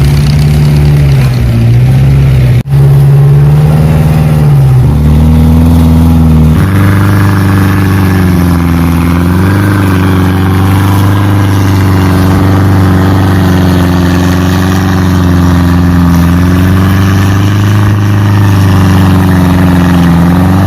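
Off-road vehicle engine running under load, its pitch rising and falling with the throttle, with a brief dropout and abrupt jumps in pitch where the footage is cut.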